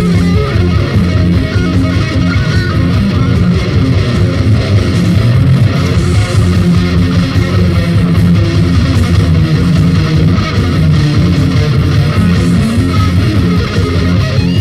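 Rock band playing on a 1993 demo-tape recording: strummed electric guitars over bass guitar, loud and continuous.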